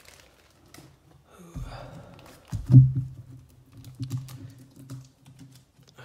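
Trading cards being handled and slid into plastic sleeves: light clicks and taps, with a dull thump a little under three seconds in.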